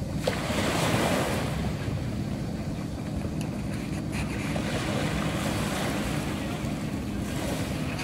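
Small sea waves breaking and washing up the sand beach, with wind buffeting the microphone. A wave breaks loudest about a second in.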